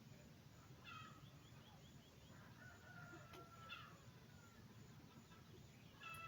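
Faint animal calls over a quiet background: a short call about a second in, a longer drawn-out one around three seconds, and another short call near the end.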